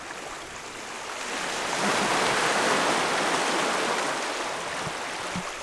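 Rushing water noise from a sailing yacht moving through choppy waves, swelling for a few seconds and easing off near the end.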